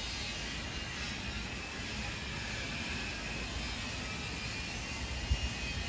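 Steady low background rumble with a faint high whine that drifts slowly in pitch, and a soft knock about five seconds in.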